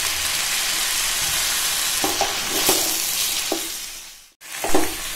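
Raw chicken pieces sizzling in hot sesame oil with onions and tomato in a kadai, with a wooden spatula scraping through the pan a few times. Just after four seconds in the sizzle briefly fades out, then comes back with a louder scrape.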